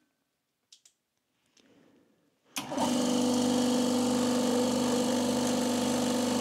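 Two faint clicks, then about two and a half seconds in one pump motor of a multi-motor ultra-low-noise air compressor starts abruptly and runs with a steady hum. It is running on a single phase of its new 400 V three-phase wiring, and only one motor turns, as intended.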